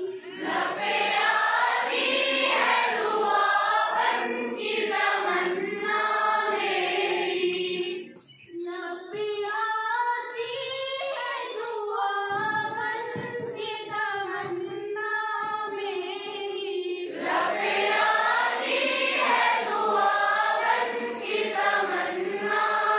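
A group of schoolchildren singing together in unison, a morning-assembly song, with a short break about eight seconds in.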